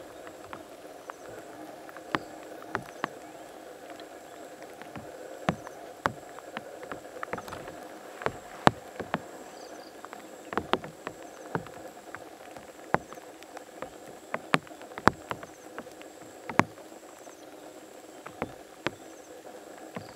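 A steady evening insect chorus, a thin high buzz over a lower hum, broken by irregular sharp clicks and snaps about once a second.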